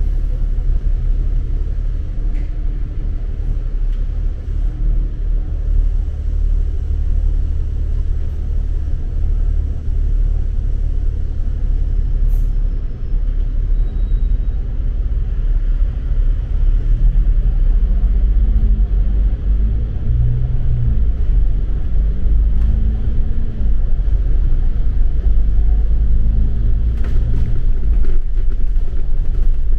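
Outdoor city street ambience: a steady, loud low rumble with a fainter hiss above it. Partway through, a faint wavering tone rises and falls over it for several seconds.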